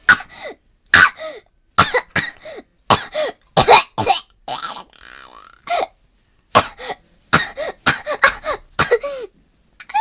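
A person coughing and spluttering in a long string of short, separate coughs, about one or two a second.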